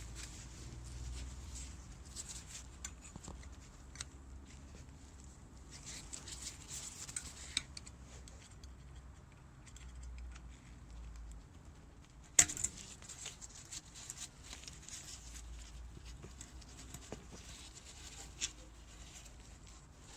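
Small metallic scraping and clicking as a seal retaining clip is worked into the groove of a motorcycle fork leg above a new fork seal, with one sharp click about twelve seconds in.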